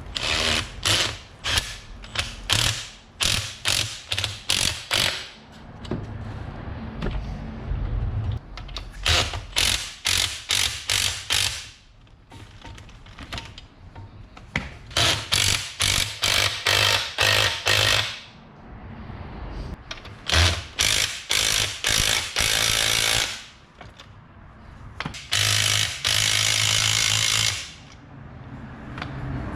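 Power impact wrench on a front strut's compressed coil spring, run in quick trigger pulses several times a second in groups, with one steady run of about two seconds near the end.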